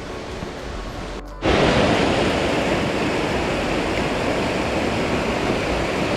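Soft outdoor ambience until an abrupt cut about a second and a half in. Then the loud, steady rush of a mountain stream, the upper Chikuma River, tumbling over rocks.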